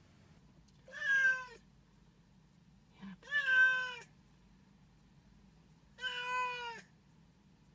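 Long-haired cat meowing three times, each meow about three-quarters of a second long and a couple of seconds apart.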